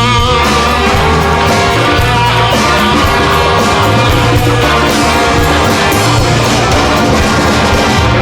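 Live band playing an instrumental rock passage with electric guitar, bass and drums at a steady beat.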